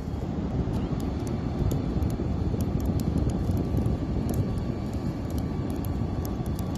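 Bullet electric fishing winch running steadily with a faint whine as it winds a longline onto its spool, under a heavy low rumble of wind on the microphone.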